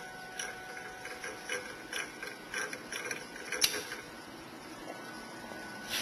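Irregular light mechanical clicks and ticks, the loudest about three and a half seconds in. The clicking stops shortly after that.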